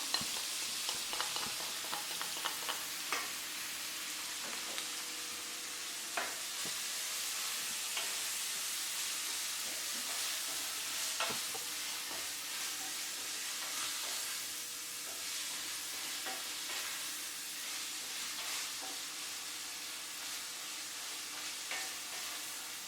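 Minced beef frying and sizzling in a pot as it browns, with a spoon stirring it and scraping and tapping the pot every so often.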